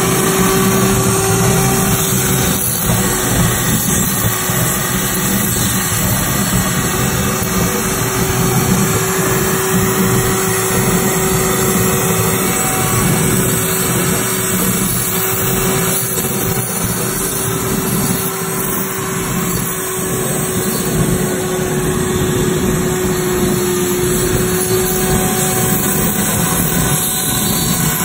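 Handheld corded power tool running steadily with a constant whine as it shaves a spinning foam dome, the motor-driven turntable running under it.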